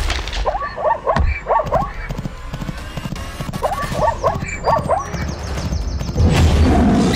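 Cartoon zebra sound effect: two bursts of quick, horse-like yipping calls about three seconds apart, over galloping hoofbeats and background music. A louder low rumble follows near the end.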